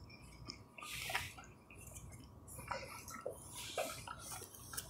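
Faint, wet mouth sounds of someone chewing a mouthful of macaroni and cheese, in scattered soft squishes.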